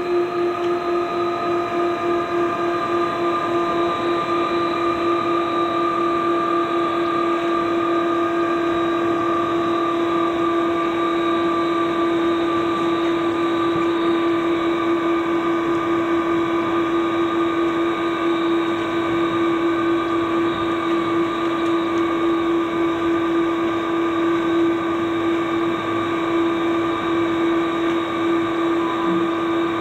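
Jet engines of a KC-135 tanker running steadily, heard from inside the cabin: a loud, even drone with a high whine held at a constant pitch, pulsing slightly near the start.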